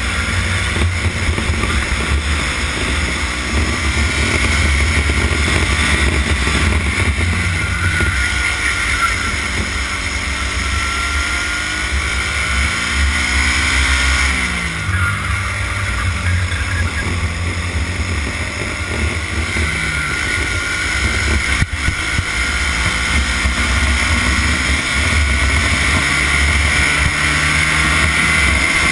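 Racing kart engine heard onboard at speed, its pitch repeatedly falling as the driver lifts for corners and rising again as he accelerates out.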